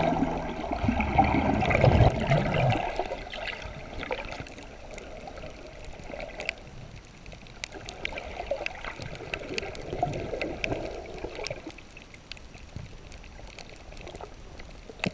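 Water sloshing and trickling, swelling and fading irregularly, with scattered small clicks.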